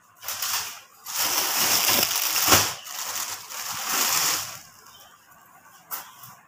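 Rustling and crinkling of cloth being handled and shaken out, loud from about one second in until about four and a half seconds, with a sharp crackle about halfway through.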